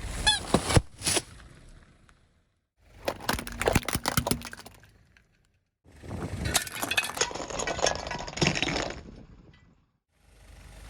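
Brittle objects cracking and snapping as they are crushed under a car tyre, in three separate bursts of sharp cracks broken by short gaps of silence.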